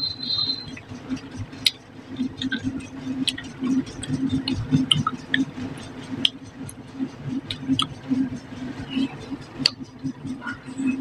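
Close-miked eating sounds: chewing and wet mouth smacks as rice mixed with fish curry is eaten by hand, with frequent short clicks and smacks throughout.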